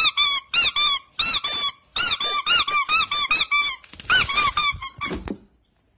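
Squeaker inside a one-eyed plush toy with rope arms being squeezed again and again, giving loud, short squeaks in quick runs, each squeak rising and falling in pitch.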